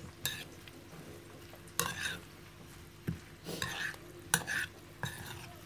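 A metal spoon stirring and tossing a dressed bulgur salad in a bowl: a series of irregular scrapes and clicks as the spoon catches the bowl.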